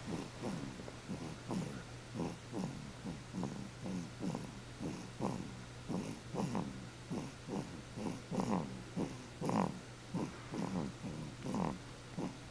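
Snoring: short, quick snores in an uneven run, about three or four a second, some louder than others.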